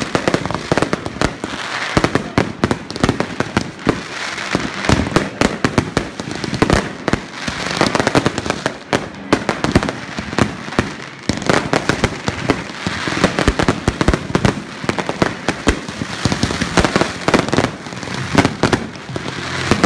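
Fireworks and firecrackers going off together: a continuous, dense run of sharp pops and bangs, several a second, over a steady crackling haze.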